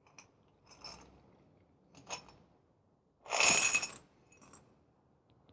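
Metal nuts and bolts clinking against a glass jar: a few separate light clinks, then a longer, louder clatter about three and a half seconds in.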